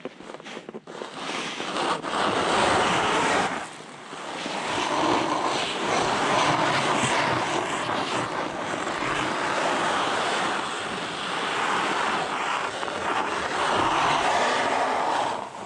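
Skis scraping and sliding across hard-packed snow, with wind noise on the microphone; the scraping swells and fades with each turn and dips briefly about four seconds in.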